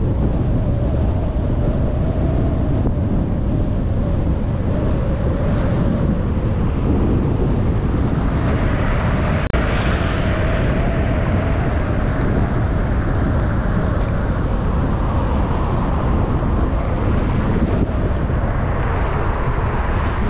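Steady road and wind noise of a car being driven, a deep rumble with a faint steady hum. About eight seconds in, a louder rush swells and fades over a few seconds.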